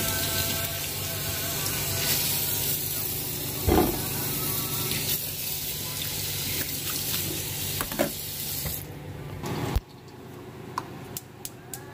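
Garden squash frying in a pan with a steady sizzle, and a knock about four seconds in. The sizzle stops abruptly near the end, followed by a few light clicks.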